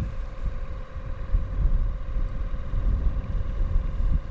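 Wind buffeting the camera microphone, a gusty low rumble that swells and falls, with a faint steady hum underneath.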